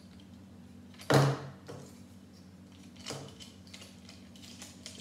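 Plastic brick pieces of a model-kit plane being handled and pressed together, with a sharp click about a second in and a weaker one about two seconds later.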